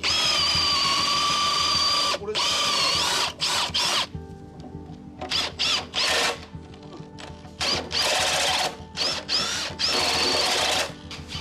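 Power drill running in about five short bursts, its whine wavering in pitch as it takes load.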